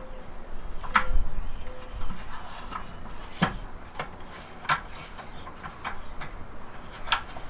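Scattered light clicks and knocks of a Lagun table mount's metal swivel platform being handled on its post, the loudest about three and a half seconds in.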